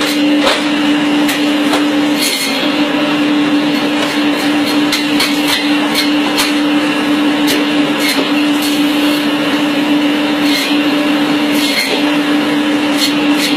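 Electric meat band saw running with a loud, steady hum, with irregular short clicks and knocks as pieces of meat are pushed through the blade.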